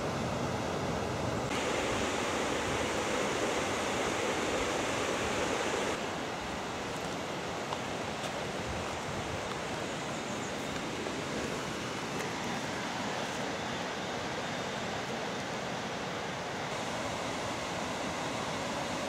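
Steady rushing of water from a mountain river and a hot-spring geyser's jet of spray. It drops a little about six seconds in and rises again near the end.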